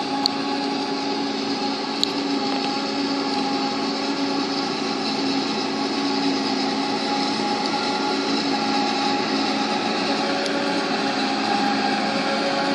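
Self-propelled forage harvester chopping standing maize for silage, with a tractor running alongside: a steady machine drone with a constant hum. Two brief sharp clicks come near the start and about two seconds in.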